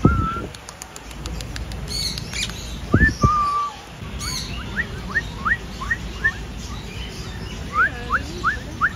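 Aviary parrots chirping: runs of short, quick rising chirps, one near the middle and another near the end, with a few higher chirps and a soft bump about three seconds in.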